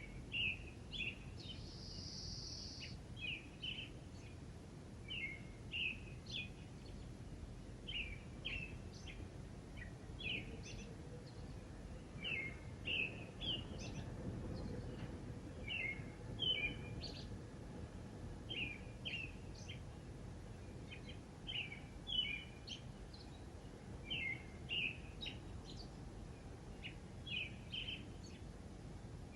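A songbird singing a short phrase of three or four quick high notes, repeated about every two seconds, over a steady low background rumble.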